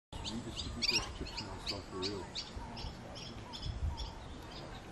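Birds chirping in a quick repeated series, about two to three short chirps a second, over a faint low background murmur.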